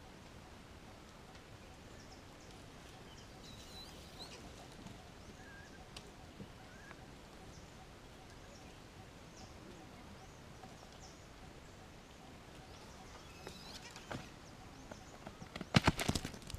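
Quiet outdoor ambience with faint scattered bird chirps. Near the end, a quick cluster of loud knocks and crackles close to the microphone.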